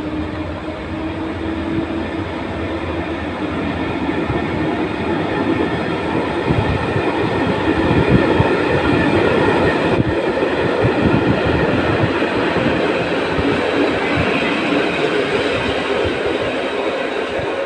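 Passenger coaches of a locomotive-hauled train rolling past on the near track, wheels clattering over the rail joints, loudest about halfway through. A rising whine from the electric locomotive fades out in the first couple of seconds.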